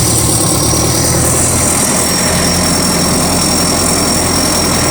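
Engine of a GAZ tracked all-terrain vehicle running steadily at low revs, with a thin high whine held level over it.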